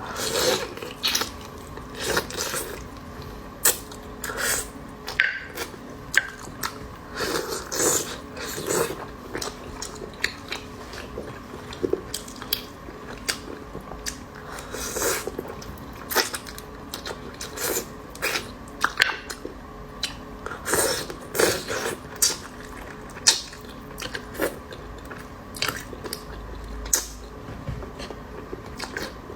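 A person biting and chewing spicy beef balls close to the microphone: irregular wet mouth clicks and smacks, one or two a second.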